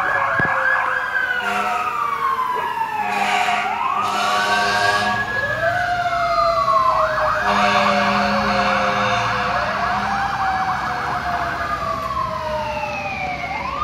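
Several fire truck sirens sounding at once, overlapping slow wails that rise and fall in pitch. A fast warbling yelp runs over them at the start, drops out after about a second, and comes back for a few seconds in the middle.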